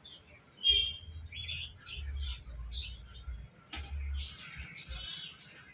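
Small birds chirping and twittering in short repeated calls, with low handling rumble and one sharp click about two-thirds of the way through.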